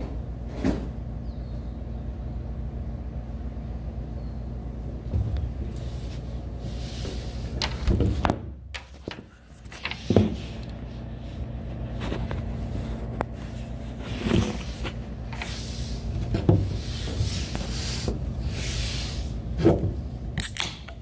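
Phone handling noise: scattered knocks and rubbing as the phone is moved and set up, over a steady low background hum. Near the end comes a sharp click as a soda can's pull tab is lifted.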